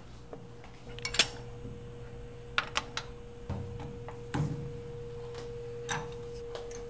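A metal mold blank being handled and set into a steel machine vise: a sharp metallic clink about a second in, then several lighter knocks and taps. A faint steady hum runs underneath.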